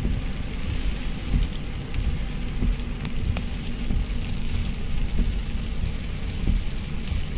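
Car cabin on a moving car in heavy rain: a steady low rumble of tyres and engine on the wet road, with rain hitting the roof and windscreen and a few sharp taps about three seconds in.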